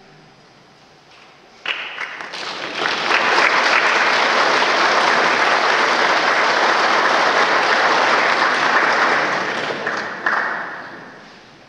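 Audience applauding: the clapping starts suddenly about two seconds in, swells to full applause, and dies away near the end.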